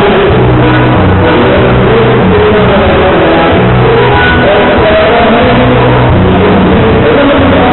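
Loud live gaúcho dance-band music: a bass line stepping from note to note about once a second under a running melody.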